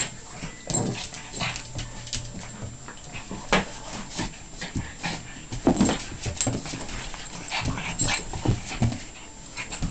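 A Pekingese and a golden retriever play-fighting at close range: a string of short, irregular dog sounds and scuffles, loudest just before the middle.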